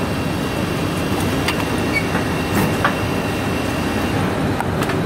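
Machinery running steadily: a vertical clay-turning lathe spins a wet porcelain insulator blank as it is trimmed, with a faint steady whine and a few light clicks.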